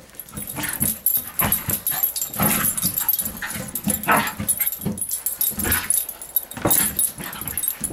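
A terrier tussling with a large inflated rubber exercise ball, making small vocal noises as it pushes its muzzle and paws against the ball, which rubs and scuffs. The sounds come in quick, irregular bursts with no pause.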